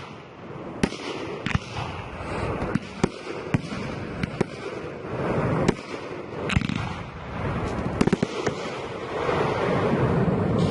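Aerial fireworks display: shells bursting with sharp bangs about once or twice a second, over a continuous crackle that grows denser toward the end.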